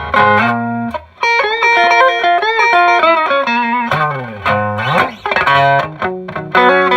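Fender Stratocaster electric guitar played through a Fender Bassman amplifier and a speaker with a patched, paper-mache-repaired cone: a run of single notes and chords, with pitch bends about four to five seconds in.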